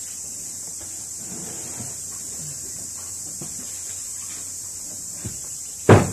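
A steady high-pitched hiss with faint scattered low sounds, broken near the end by one loud, sharp knock.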